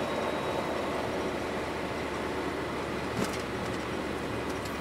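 Steady engine and road noise inside the cab of a GAZelle light truck driving in traffic, with a brief knock about three seconds in.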